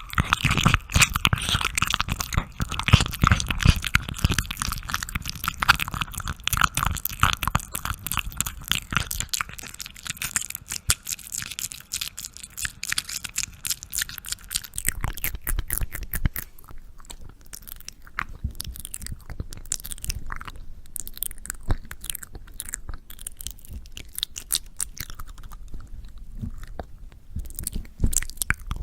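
Close-miked crackly crunching and clicking, dense at first and thinning to scattered clicks about halfway through.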